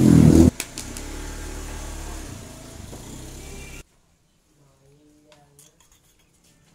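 A motor vehicle engine revving close by, rising in pitch and loudest in the first half second, then running quieter until it cuts off abruptly a little under four seconds in.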